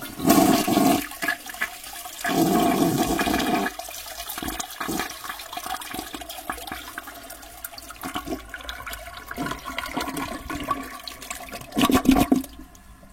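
A toilet flushing: a rush of water, loudest in the first few seconds, settling to a lower running wash, with a short louder surge near the end before it fades out.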